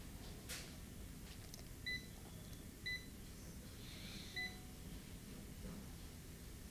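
Digital multimeter in diode mode beeping three short times, about a second apart, as its probe touches points on a phone logic board: the meter's beep for a low reading on the probed line.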